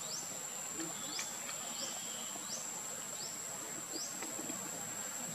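Steady high-pitched insect drone, with short rising chirps repeating a little more than once a second.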